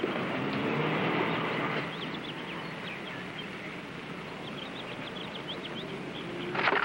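Outdoor park ambience: small birds chirping over a steady background hiss, with a few low pitched calls in the first two seconds and a short, louder noise near the end.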